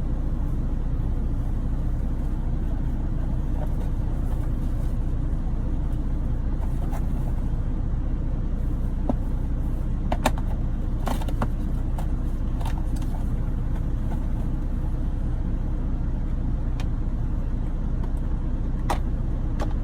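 Steady low rumble of an idling truck engine heard inside the cab, with a few light clicks and taps about halfway through and near the end.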